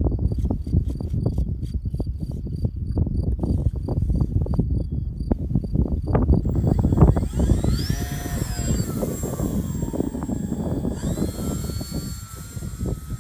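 Gusty wind buffeting the microphone, with faint regular high ticks in the first half. About six seconds in, the RC model plane's motor and propeller whine comes in, rising and falling in pitch as the plane takes off and flies past.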